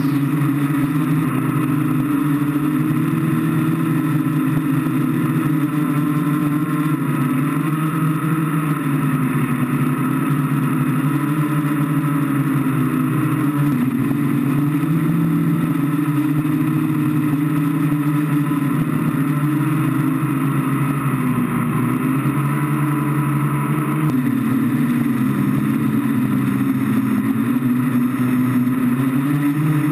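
Octocopter's electric motors and propellers buzzing, heard from the camera on its frame, the pitch wavering up and down continuously as the throttle changes.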